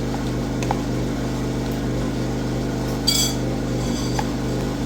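A single ringing clink of cutlery against a dish about three seconds in, with a few faint ticks, over a steady low mechanical hum.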